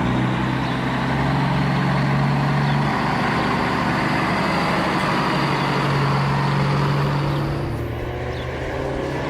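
A vehicle engine running steadily with a low hum, easing off slightly about eight seconds in.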